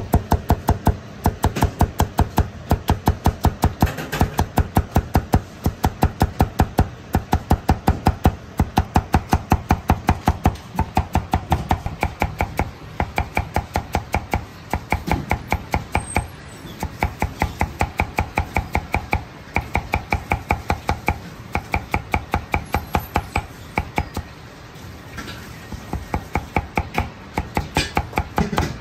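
Chinese cleaver knocking on a plastic cutting board in a fast, even rhythm, about four or five strokes a second, as it slices peeled ginger into fine julienne strips. The chopping breaks off briefly a few times.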